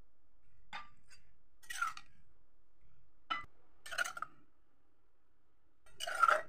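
A spoon clinking and scraping against a small glass bowl as thick chili paste is spooned into it. There are about five short clinks and scrapes, and the longest and loudest comes near the end.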